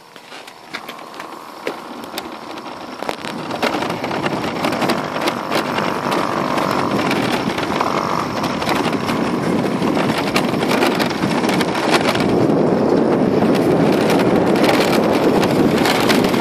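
Tyres rolling over a loose gravel track, a steady crunching rush peppered with small clicks of stones, with wind buffeting the microphone. It grows louder over the first few seconds as speed picks up, then stays steady.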